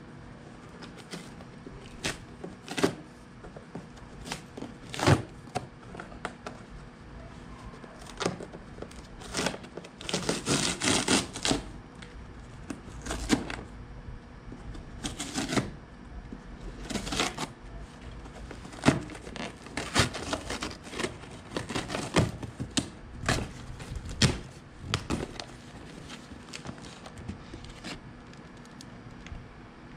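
A cardboard shipping box being torn open by hand: irregular sharp rips, clicks and knocks of tape and flaps giving way, with a longer stretch of tearing about ten seconds in.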